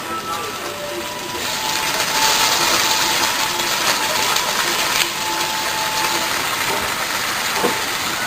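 Sauce sizzling on a hot iron griddle as an okonomiyaki cooks, growing louder about a second in and then holding steady, with a few sharp clicks of a metal spatula or utensil on the griddle.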